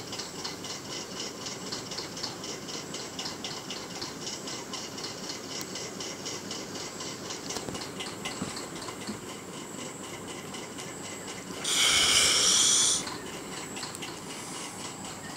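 Crickets chirping steadily in rapid pulses, about five a second. Just before the end a loud, even hiss lasts a little over a second.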